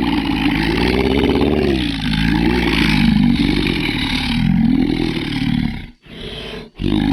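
Monster roar sound effect: a long growling roar whose pitch rises and falls, breaking off about six seconds in. A short, quieter growl follows, then another roar begins near the end.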